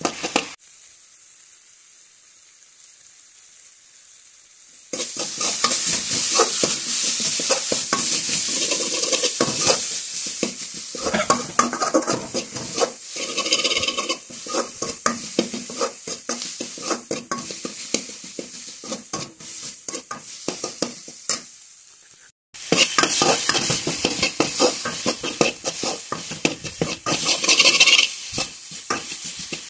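Chopped onion, tomato and dried red chilli sizzling in oil in a steel pan, as the onion-tomato base for chokha is fried. For the first few seconds there is only a soft, steady sizzle. About five seconds in, a metal spatula starts stirring and scraping rapidly against the pan bottom, with a brief break about 22 seconds in.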